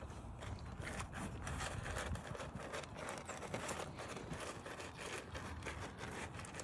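Scottish Highland calves eating feed: a quiet, irregular run of crunching and scraping clicks.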